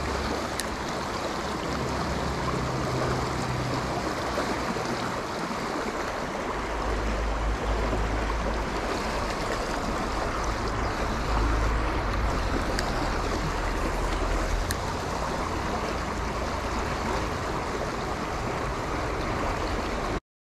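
Shallow stream rushing steadily over a riffle. It cuts off abruptly near the end.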